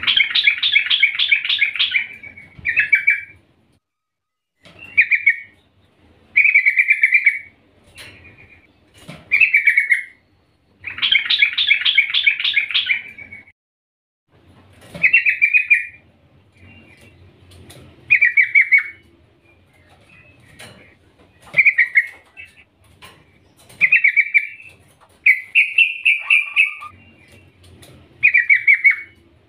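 Yellow-vented bulbul calling in repeated bubbly, chattering phrases, which the uploader gives as a female calling for a male. There are two longer runs of about two seconds, one at the start and one about eleven seconds in, with many short phrases between and after them.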